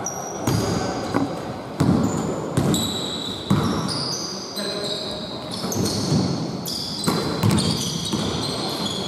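Basketball bouncing on a hardwood court in a large, echoing gym, with irregular thuds about a second apart. Rubber-soled basketball shoes squeak sharply in short, high-pitched chirps.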